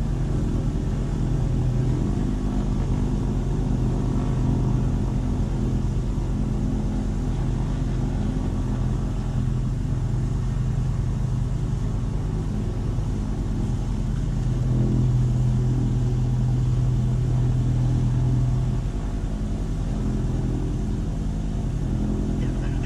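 A steady low mechanical drone with a few held pitched tones, growing a little louder about fourteen seconds in and easing back near nineteen seconds.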